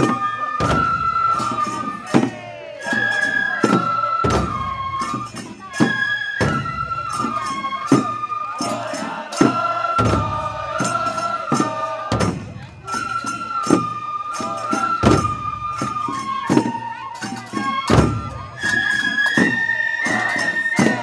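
Festival hayashi music: a Japanese bamboo transverse flute (fue) playing a melody of held, stepping notes over frequent taiko drum strikes.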